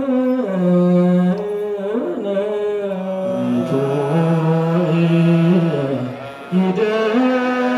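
Ethiopian Orthodox liturgical chant, amplified through a microphone: slow, with long held notes that step up and down in pitch, and a brief break for breath about six seconds in.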